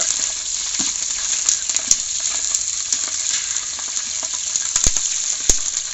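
Slit green chillies sizzling in hot coconut oil in a steel pot as they are lightly stirred, a steady frying hiss. Two sharp clicks stand out near the end.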